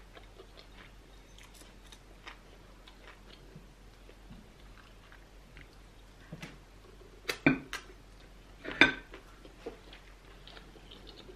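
A person eating seafood okra soup with her fingers from a bowl: soft chewing and wet mouth sounds with small clicks, and two louder sharp sounds about seven and a half and nine seconds in.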